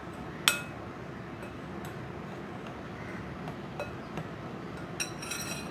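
Metal spoon stirring dry rice flour and sugar in a glass bowl, clinking against the glass now and then. The sharpest tap comes about half a second in, and a short run of ringing clinks follows near the end.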